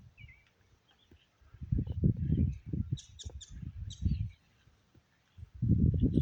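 Short high chirps and calls from a flock of birds, taken for starlings, with a cluster of calls about three seconds in. Two long stretches of low rumbling noise on the phone's microphone are louder than the birds.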